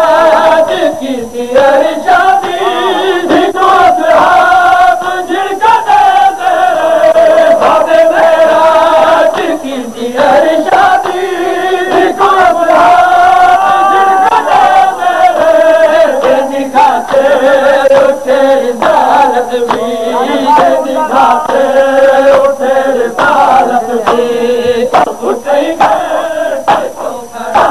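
Noha lament chanted by male voices in long, drawn-out notes, over a crowd of mourners beating their chests in matam, heard as frequent sharp slaps.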